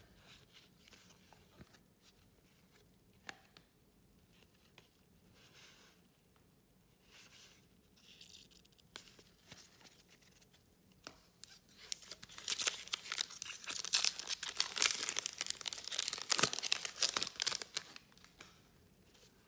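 Trading card pack wrapper being handled, then torn open with loud crackling and crinkling. The tearing fills the second half.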